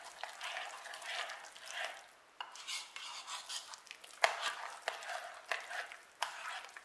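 A fork stirring mashed sweet potato mixture with oil and egg in a mixing bowl: soft, uneven scraping and squishing, with a few sharp clicks where the fork knocks the bowl.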